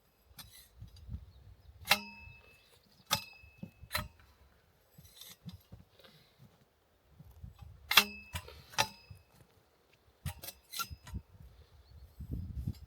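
Sharp metallic clinks at irregular intervals, some ringing briefly, over low rustling and thuds. The two loudest come about two seconds in and about eight seconds in, with a quick run of lighter clicks around ten seconds in.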